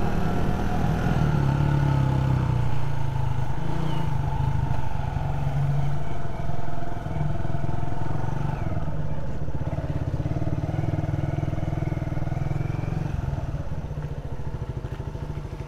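Motorcycle engine running while under way, with a steady low engine note. Near the end the engine gets quieter as the rider eases off.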